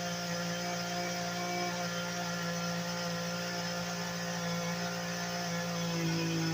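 Two-stroke chainsaw running steadily at high revs, a buzzing hum with a small shift in pitch near the end. Its chain is worn dull from over-sharpening.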